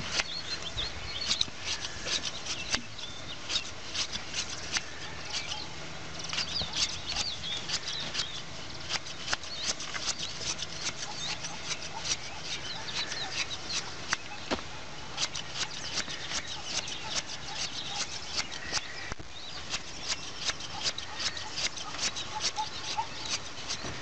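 Hand blade shears snipping through a sheep's fleece: a rapid, irregular run of sharp clicks.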